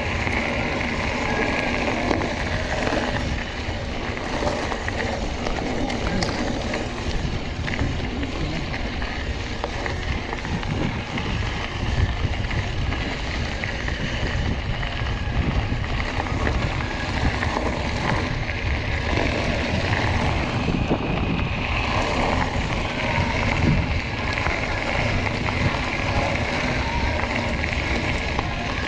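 Mountain bike rolling downhill over a loose gravel track: tyres crunching and rattling on the stones, with wind buffeting the microphone.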